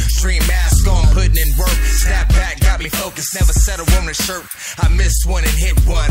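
Hip hop music: a rapped vocal over a heavy bass beat, with the bass dropping out for a moment a little past halfway.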